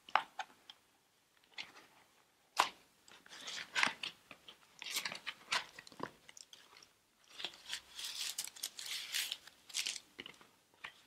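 Kraft paper envelope and cardboard packaging rustling and crinkling in irregular bursts as it is opened by hand and its contents pulled out.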